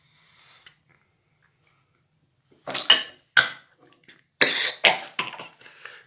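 A man coughing into his elbow: a run of about four coughs in quick succession, starting about two and a half seconds in.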